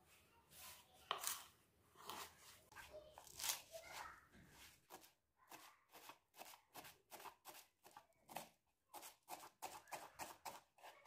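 Kitchen knife chopping fresh coriander on a wooden cutting board: a few scattered knocks at first, then steady quick strokes, about three or four a second, from about halfway through.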